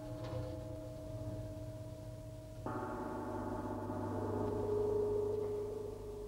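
Tam-tam ringing with many overlapping metallic tones. A fresh stroke about two and a half seconds in sets off a fuller ring that swells and then slowly fades.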